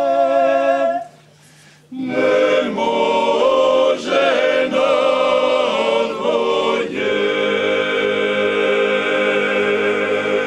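Croatian male klapa group singing a cappella in close harmony. A held chord breaks off about a second in. After a short pause the voices come back in and close on a long sustained final chord.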